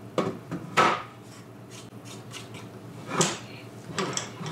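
Wooden level being handled and positioned on a miter saw's table: a few sharp knocks of wood against the saw and a brief scrape as it is slid into place.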